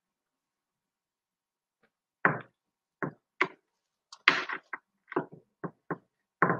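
Dead silence, then from about two seconds in a series of irregular short knocks and taps, about a dozen, picked up through a video-call microphone that cuts to silence between them.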